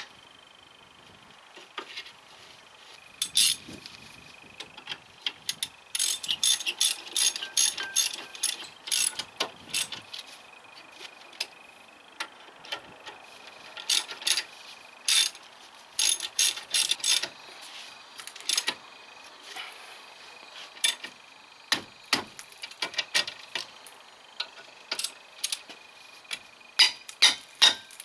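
A ratchet wrench clicking in quick runs, with pauses between, as the greased bolts on a front disc brake are screwed in and tightened.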